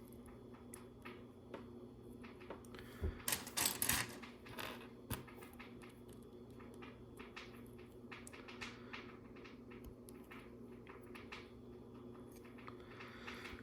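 Small plastic LEGO pieces clicking and clattering as they are picked up and pressed together, with a louder rattle of pieces about three seconds in.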